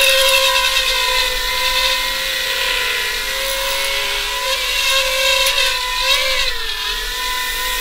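Eachine FB90 FatBee 2S brushed micro quadcopter in flight, its four ducted four-blade props giving a steady high whine. The pitch wavers up and down with throttle through the second half.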